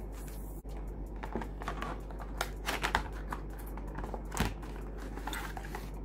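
Handling noise as a Cat6 network cable and an RJ45 crimping tool in its plastic blister pack are moved about on a desk: scattered rustles and clicks, with a sharper tap about four and a half seconds in, over a steady low hum.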